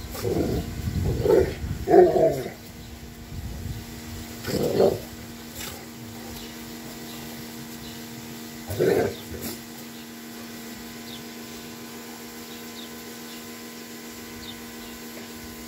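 Dogs barking in play between an English Mastiff and a French Bulldog puppy. There is a quick run of about five short barks in the first two seconds, a single bark near five seconds and another near nine seconds.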